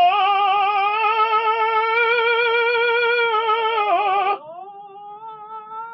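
An operatic singing voice holds a loud, high sustained note with vibrato as a vocal exercise. About four seconds in it drops abruptly to a much softer note at about the same pitch, which is held on.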